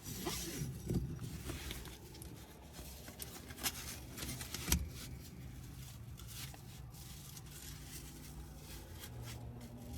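Seatbelt webbing and metal latch plate being handled: faint rustling with a few sharp clicks, about one, three and a half, and four and a half seconds in. Under it runs a low steady hum.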